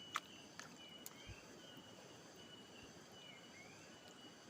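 A faint high-pitched animal call repeating about once a second, each a held note followed by a short slide in pitch, over quiet outdoor background; a few sharp clicks sound in the first second.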